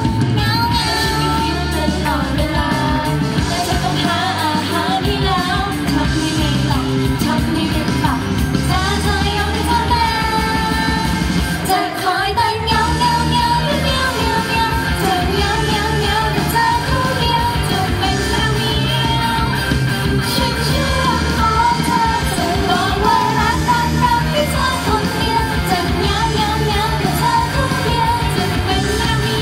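A woman singing into a microphone over a loud pop backing track with a steady beat; the bass drops out briefly about twelve seconds in.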